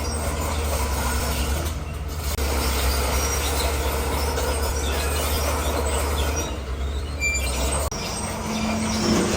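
Crawler bulldozer working: its diesel engine runs steadily with a low hum, together with the grinding noise of the machine moving over stone. The sound breaks off sharply about two and a half seconds in and again near the end, and after the second break the engine note changes.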